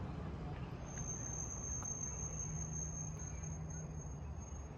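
An insect trilling one steady, unbroken high-pitched note, beginning about a second in, over a low background rumble.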